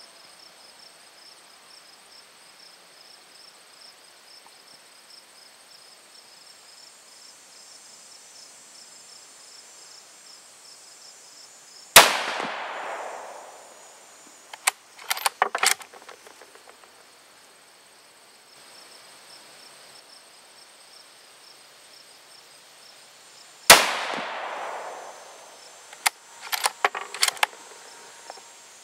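Two shots from a Remington 700 bolt-action rifle in .22-250 Remington, about twelve seconds apart, each followed by a rolling echo that fades over a second or two. A few seconds after each shot comes a short run of metallic clicks as the bolt is worked to eject the case and chamber the next round.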